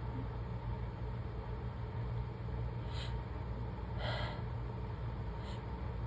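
A person's short gasping breaths: a brief one about three seconds in, a louder one about four seconds in and a faint one near the end, between sneezes, over a steady low hum.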